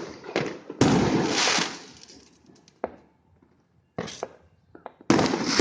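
Fireworks shells bursting: a loud bang about a second in that trails off in about a second of crackle, a single sharp crack near three seconds, a shorter burst at about four seconds, and another loud bang near the end.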